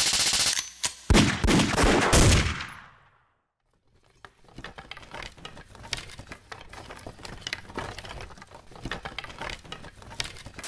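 A rapid machine-gun-like rattle, then several heavy blasts that die away. After a short gap come scattered faint clicks and crackles.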